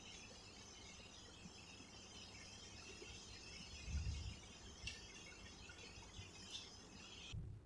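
Faint steady high-pitched hiss or chirring, with a soft low thump about four seconds in; the hiss stops abruptly near the end.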